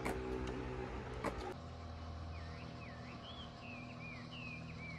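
A bird singing a run of short whistled notes that slide up and down, starting about two seconds in over a low steady hum. Before that, a low steady hum with a few sharp clicks.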